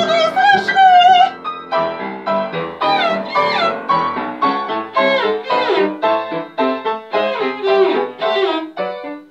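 Soprano voice ends a sung note with wide vibrato about a second in, then the cello takes over with short bowed notes at about two a second and some sliding glissandi, with piano beneath.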